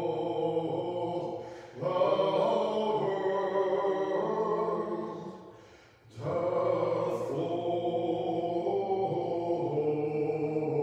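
Small choir chanting an Orthodox vespers hymn a cappella, several voices holding sustained notes together. There are two brief pauses between phrases, about two seconds and six seconds in.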